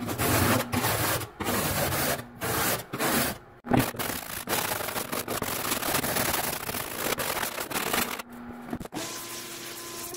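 Old chisel scraping rust off the metal of an old camper stove: rough scraping strokes with short breaks over the first few seconds, steadier through the middle, and quieter for the last two seconds.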